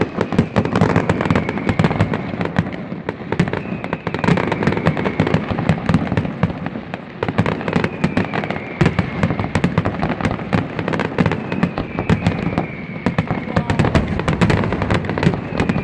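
Fireworks display: a dense, continuous barrage of bangs and crackling shell bursts, with faint falling whistles rising above it every few seconds.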